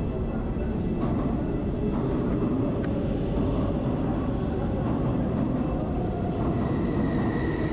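Cairo Metro train rumbling steadily in an underground station, with a faint high whine near the end.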